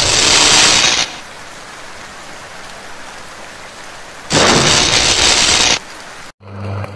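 Electrical arcing at high-voltage substation insulators in the rain: a loud sizzling hiss that cuts off about a second in and returns about four seconds in for a second and a half, over a steady hiss of rain. Near the end it cuts to a steady low electrical hum.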